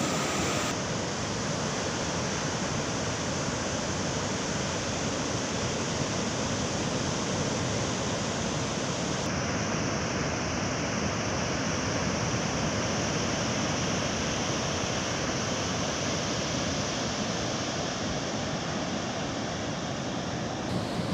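Steady rush of rough surf breaking on a beach, the sea churned up ahead of a cyclone. The sound's brightness shifts abruptly about a second in and again about nine seconds in, where the footage is cut.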